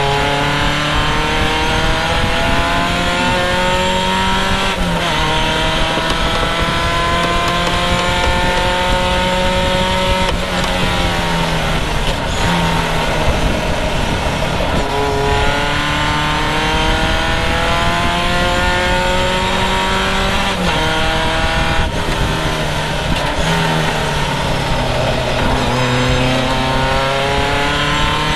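Triumph sports racing car's engine heard from its open cockpit, pulling hard with its pitch climbing, then dropping back sharply several times for gear changes and lifts through the corners.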